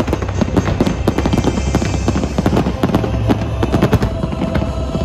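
Aerial fireworks barrage: a dense, continuous run of shell bursts and crackling, several bangs a second.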